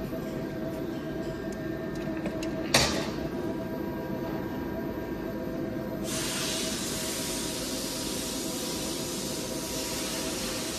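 Double twist buncher machine running, a steady mechanical hum with several held tones. A single sharp knock comes just under three seconds in, and a loud, steady hiss cuts in suddenly about six seconds in and keeps on.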